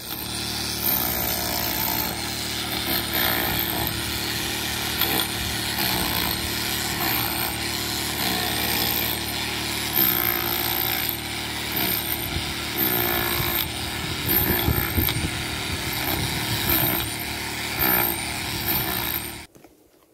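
Portable generator running steadily while an electric hammer drill hammers at the fallen masonry wall in repeated spells of rapid knocking.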